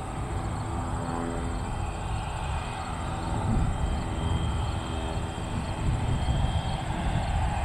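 Dassault Falcon 2000EX business jet taxiing, its twin Pratt & Whitney Canada PW308C turbofans running steadily at low power: a high whine over a low rumble.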